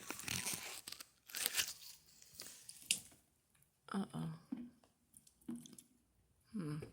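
Plastic squirt-top bottle being handled and its cap screwed tight: crinkling, crunching plastic with a few sharp clicks over the first three seconds. A few short murmurs of a voice follow in the second half.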